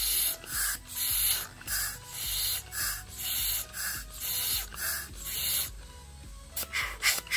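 Air being blown in repeated hissing puffs, about two a second, through a motorcycle's rear disc-brake caliper to drive out the last of the old brake fluid, followed near the end by a few shorter, sharper spurts.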